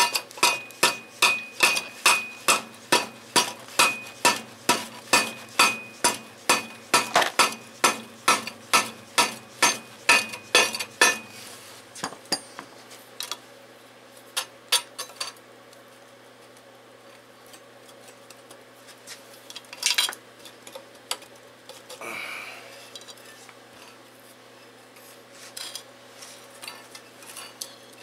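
Metal-on-metal clinking as the crankshaft is worked out of a Briggs & Stratton engine's crankcase: a quick, even run of sharp clinks, about three a second, each with a ringing note, stopping about eleven seconds in. After that come scattered clinks and a single louder knock.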